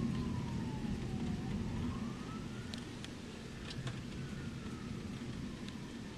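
A distant siren wailing slowly down and up in pitch, over the tail of a thunder rumble that fades away in the first couple of seconds. A few faint ticks sound through it.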